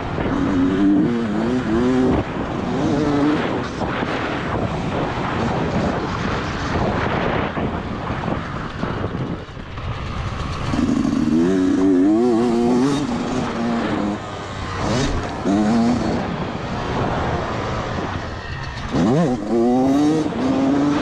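Yamaha YZ125 two-stroke single-cylinder motocross engine revving under hard riding, its pitch climbing and dropping in repeated bursts as the throttle is opened and closed, with the rush of wind and tyres between revs.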